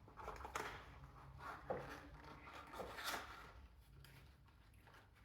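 Faint, scattered handling noises: light clicks and rubs of small parts being picked up and moved, with short knocks about a second and a half in and again about three seconds in.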